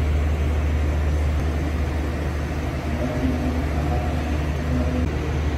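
A loud steady low drone, with faint held tones coming and going above it.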